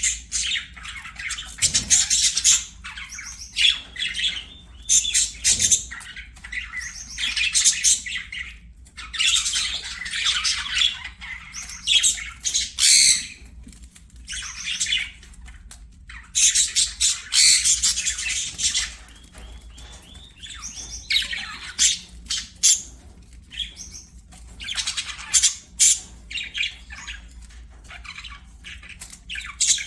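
Budgerigars chattering and warbling in long bursts of scratchy, twittering song with short squawks and brief pauses in between.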